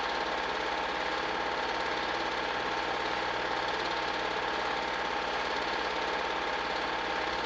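8mm film projector running: a steady mechanical whir with a fast, even clatter from the film-advance mechanism.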